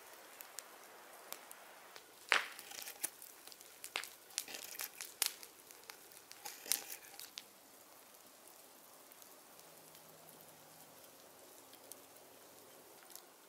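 A Mora hook knife (spoon knife) cutting out the bowl of a spruce spoon blank. It makes a quick run of short cutting strokes through the wood, the sharpest about two seconds in, and the strokes stop after about seven seconds.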